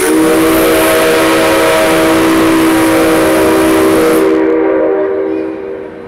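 The C57 135 steam locomotive's whistle blown once, long and loud: a low chord of several tones over a rush of hissing air. It is the opening signal of the turntable show. The hiss cuts off about four and a half seconds in, and the tones die away a second later.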